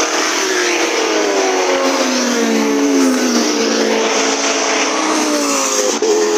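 Several race car engines at high revs pass one after another, their overlapping notes falling in pitch as each car goes by and draws away.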